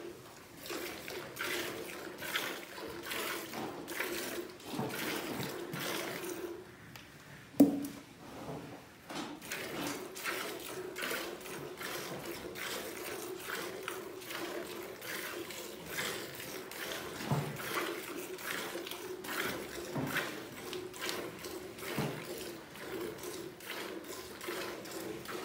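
Milk squirting into a pail as a cow is milked by hand, in an even rhythm of about two squirts a second. One sharp knock about seven and a half seconds in is the loudest sound.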